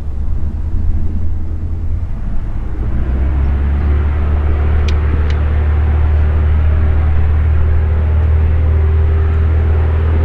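Van's RV-7 light aircraft's single piston engine and propeller running on the runway, steady and loud, growing louder and slightly higher about three seconds in as power comes up.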